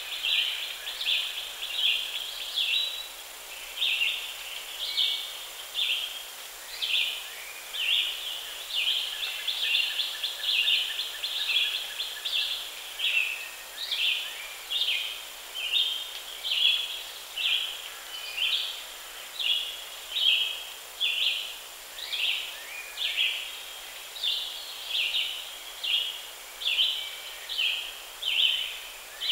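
Repeated high chirping calls from an animal, about one short burst a second, going on steadily.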